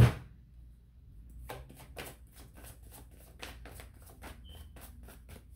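A sharp thump at the very start, then a deck of oracle cards being shuffled by hand: a quick, regular run of card clicks, about four or five a second, from about a second and a half in.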